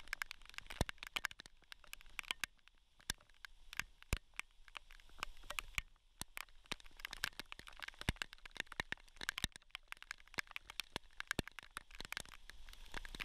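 Rain striking close to the microphone: irregular sharp ticks of drops, several a second, over a faint background hiss.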